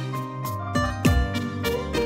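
Background music: plucked strings over a steady beat, with a low drum hit that drops in pitch on the beats.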